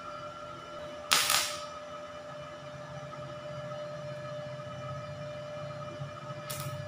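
A small 450 W inverter stick welder is switched on and idling with a steady high whine. About a second in there is a short, loud crackle, and near the end the electrode is struck and the arc starts to crackle briefly.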